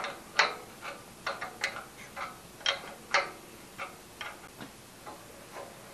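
Irregular sharp metallic clicks, some with a short ring, as the drill press's quill return-spring housing is turned by hand to wind up the spring tension.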